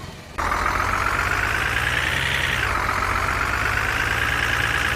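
Truck engine running, starting abruptly just after the start, its pitch climbing, dropping sharply about two and a half seconds in, then climbing slowly again.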